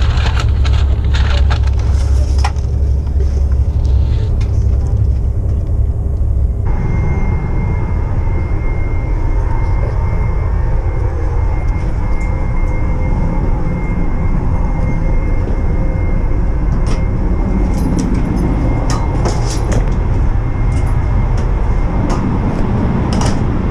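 Cabin noise of a Eurostar high-speed train running at speed: a steady low rumble with scattered clicks and rattles. About seven seconds in the sound changes and a faint steady high whine joins the rumble.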